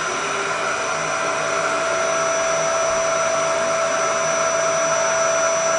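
Canister vacuum cleaner running steadily on carpet: a constant rushing suction noise with a steady high whine from the motor.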